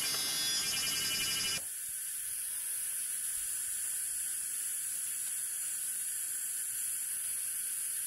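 Steady hiss of rain falling in a forest. About one and a half seconds in it drops suddenly to a quieter, thinner hiss.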